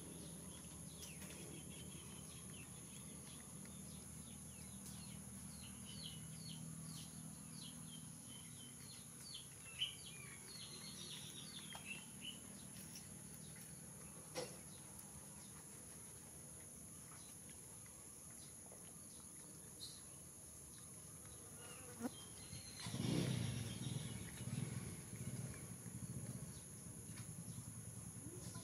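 Rural outdoor ambience: a steady high-pitched insect drone, with small birds chirping in quick short calls through the first half. A few sharp clicks, then a louder, uneven low sound for a few seconds near the end.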